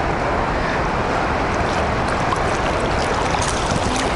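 Steady rush of the Illinois River's current flowing in the tailwater below a lock and dam, with a few faint ticks of water late on.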